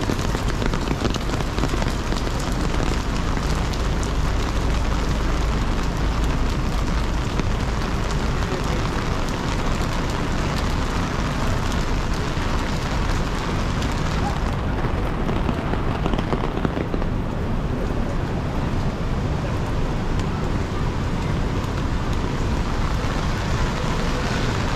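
Steady rain on a wet city street: an even hiss with a low rumble of traffic beneath. The hiss grows duller about halfway through.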